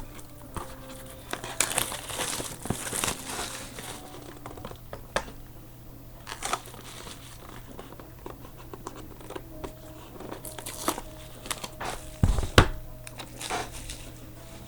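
Plastic shrink-wrap on a sealed trading card box crinkling and tearing as it is unwrapped, with scattered clicks and handling noise, and a couple of louder thumps about twelve seconds in.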